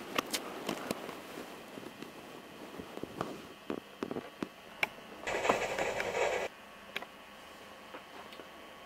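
Scattered clicks and knocks of toy engines being handled on model railway track, then a burst of noise about a second long that starts and stops abruptly.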